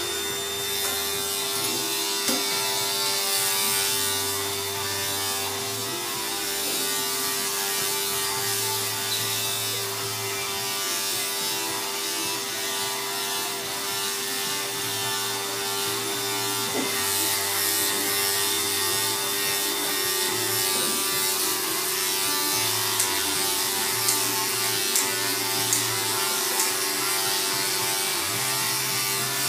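Electric dog-grooming clippers running steadily with an even motor hum. A few faint clicks come near the end.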